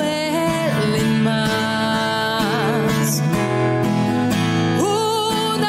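Slow Christian song: a sung voice holding notes with vibrato over acoustic guitar accompaniment.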